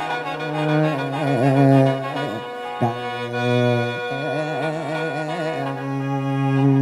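Isan mor lam klon music: a khaen (bamboo free-reed mouth organ) sounds sustained drone chords while a singer's ornamented, wavering melody rises and falls over it. A new chord enters abruptly about three seconds in.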